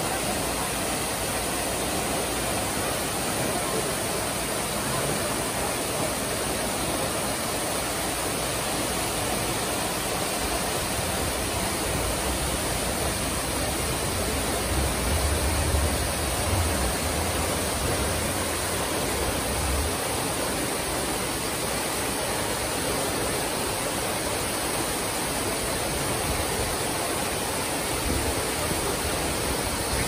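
Waterfall plunging down a rock face into a full pond: a steady, even rush of falling water, with a low rumble about halfway through.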